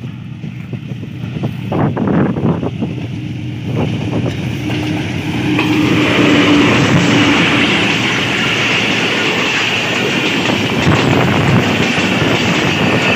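Pakistan Railways HBU-20 diesel locomotive 8078 hauling a passenger train past at speed: the sound grows as it approaches, and from about six seconds in the locomotive and then the coaches pass close with a loud, steady rumble of wheels on the rails. Wind buffets the microphone in the first couple of seconds.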